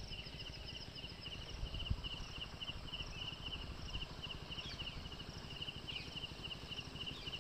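Insect chirping in a fast, even pulse, several chirps a second, over a steady low rumble.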